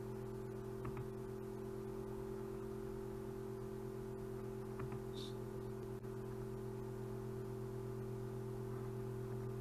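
Steady low hum made of several fixed pitches, unchanging in level, with a faint short high beep about five seconds in and a few faint clicks.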